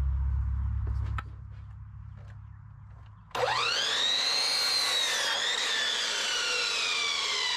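Electric sliding compound miter saw switched on about three seconds in to crosscut a wooden 2x2: the motor's whine rises steeply as the blade spins up, then slowly drops in pitch as it runs on.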